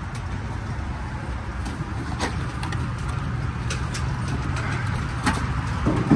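Old Chevy pickup's engine idling with the hood open: a steady low rumble with a few faint clicks. The truck is running poorly and keeps threatening to cut off.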